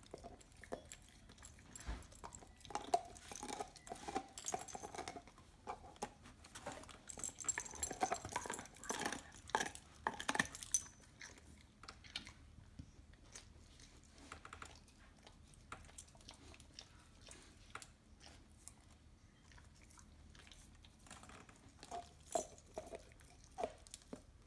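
A dog gnawing a raw marrow bone: dense crunching and clicking of teeth on bone for about the first ten seconds, then a quieter stretch with only scattered clicks, and a few more crunching bites near the end.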